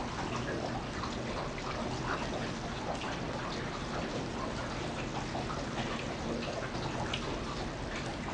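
Steady rain falling into a shallow puddle on pavement: an even hiss of many small drop splashes.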